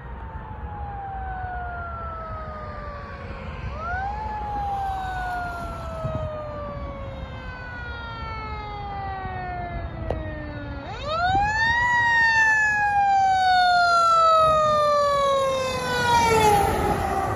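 Fire engine siren wailing as the truck approaches and passes. Each wail climbs quickly in about a second and then slides down slowly over several seconds, and it grows louder with each cycle. Near the end the pitch bends down and a rush of engine and road noise comes in as the truck goes by.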